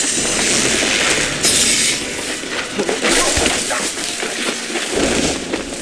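Film action sound effects for a chase: a dense run of crashes and smashing noises with bursts of hiss, loudest about one and a half and three seconds in.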